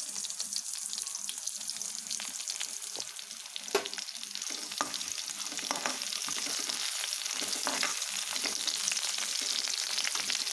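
Slit green chillies, dried red chillies and garlic cloves sizzling in hot oil in a kadai for a tempering, a steady crackle, while a spatula stirs them. One sharper click about four seconds in.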